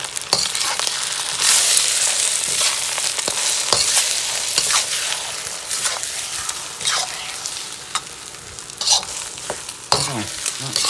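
Rice and raw egg sizzling in a hot wok while a metal spatula scrapes and knocks against the pan, turning the rice over again and again. The sizzle is loudest about two seconds in and eases off toward the end.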